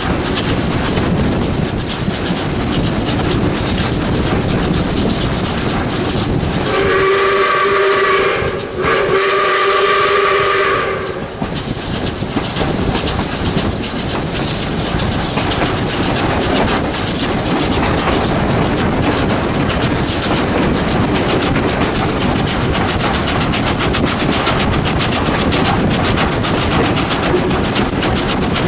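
South Australian Railways 620 class steam locomotive 621's whistle sounding two long blasts, a chord of several notes, about a quarter of the way in. Under and around it is the steady noise of the steam train running.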